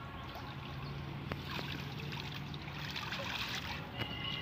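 Pond water sloshing and trickling as men wade and handle a fishing net, with a steady low hum underneath.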